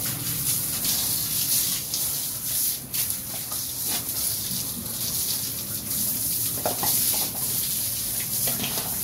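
A steady spray of water from a hose hissing onto the backs of pigs and the wet pen floor as they are washed.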